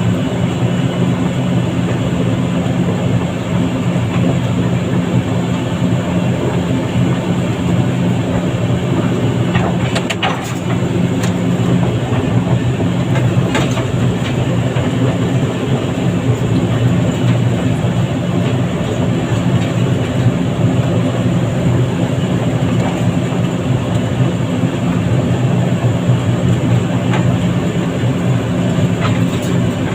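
Heavy diesel engine of an excavator or truck running steadily, a constant low drone, with a few faint clicks or knocks about ten and fourteen seconds in.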